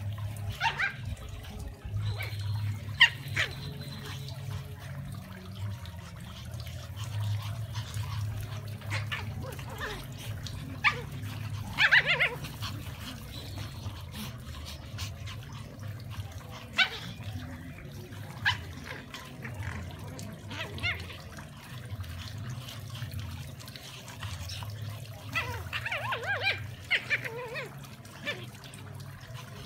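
Brussels Griffon dogs play-fighting, giving brief scattered yaps, loudest about three and twelve seconds in and in a cluster near the end, over a steady low hum.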